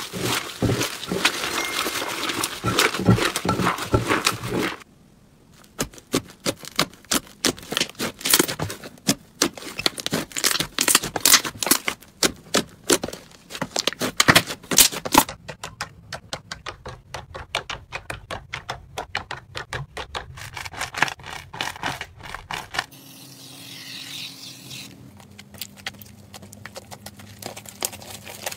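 Slime being squeezed and kneaded by hands, giving rapid crackling clicks and pops from trapped air. The texture changes several times as different slimes are worked, with a short break about five seconds in and a softer, quieter stretch near the end.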